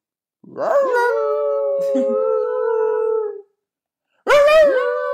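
Small dog howling: two long howls, each sweeping up and then held at a steady pitch, the first lasting about three seconds and the second starting near the end.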